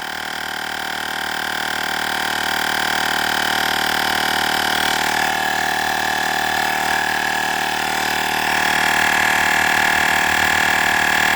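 Olgeo M7 portable air compressor running steadily as it inflates a car tyre at about 35 psi, a continuous mechanical drone with a high whine over it. It grows a little louder about three-quarters of the way through.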